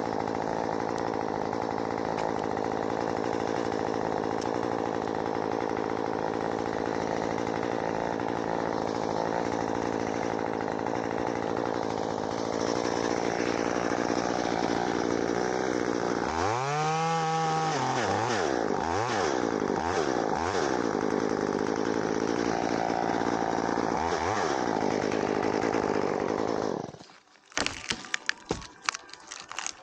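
Chainsaw engine running steadily, getting louder about halfway through, with its pitch rising and falling several times. The engine then stops near the end, and sharp clicks and rustles follow.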